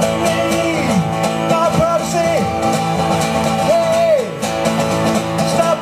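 Instrumental passage of a country-style song played on guitar, with a lead melody line that repeatedly slides down in pitch over steady held chords.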